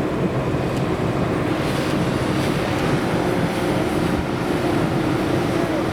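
Motorboat engine running steadily at speed, with wind and water rushing past.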